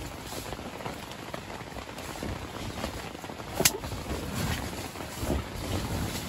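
Rustling and shuffling of a fabric sheet being handled, with soft knocks and one sharp click a little past halfway.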